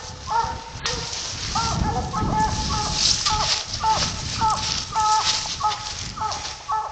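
Coonhounds barking treed in the distance: a steady run of short, pitched chop barks, about two a second, that marks a raccoon up the tree. Underneath is the rustle and crunch of someone pushing through brush on foot.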